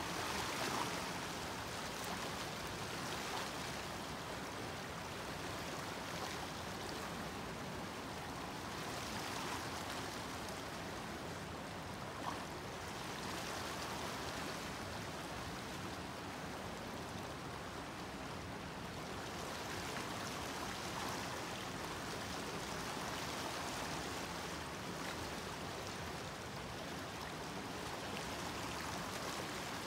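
Shallow, fast-flowing stream rushing over a gravel bed: a steady, even wash of running water.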